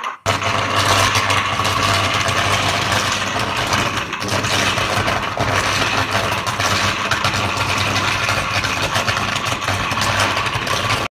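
Large Caterpillar generator engine running steadily with a loud, even drone, its air intake filter on fire.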